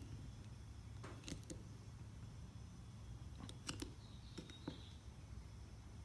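Faint scattered small metal clicks and scrapes of a steel ice pick prying a roll pin up out of a Honda ignition lock housing, with a brief squeak about four seconds in.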